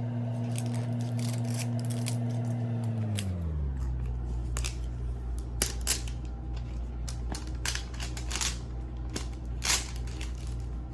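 Scissors snipping through a toy's plastic and cardboard packaging, in a scatter of sharp clicks and crackles. Under it a steady low hum runs, dropping in pitch about three seconds in.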